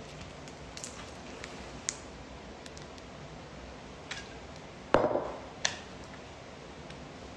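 A few faint clicks and taps, then one loud knock about five seconds in that dies away over half a second, followed quickly by a sharper click; quiet room tone between.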